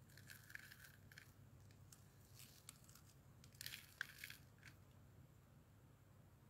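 Near silence: a faint low hum, with a few soft scratchy, crackling noises about half a second in and again around four seconds.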